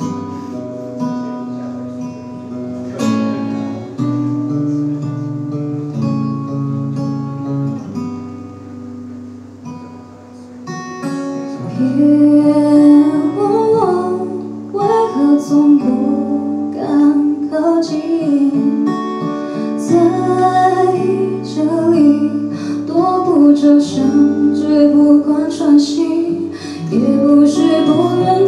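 Acoustic guitar playing chords alone. About eleven seconds in, a woman's voice comes in singing the melody over the guitar.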